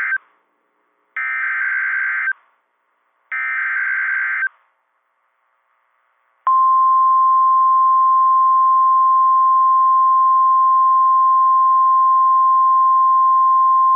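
NOAA Weather Radio Emergency Alert System alert. It opens with the end of one SAME digital header burst and then two more, each about a second of warbling data chirps. After a short pause comes the steady, single-pitch 1050 Hz warning alarm tone, which starts about six and a half seconds in and signals that a new warning, here a severe thunderstorm warning, is about to be broadcast.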